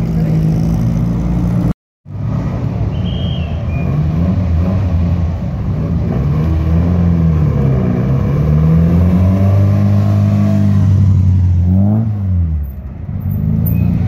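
Classic racing car engines revving as they pull away and drive past, the pitch climbing and dropping again and again as they run up through the gears. The sound cuts out briefly about two seconds in.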